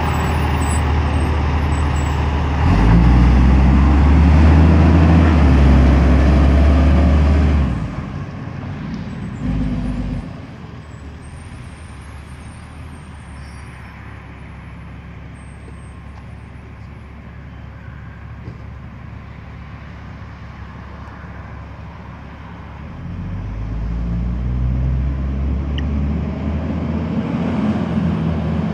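Nexter Titus 6x6 armoured vehicle's diesel engine on its Tatra chassis, revving loudly as the vehicle pulls away, then fading to a faint distant rumble for a long stretch, and growing louder again near the end as it drives back closer.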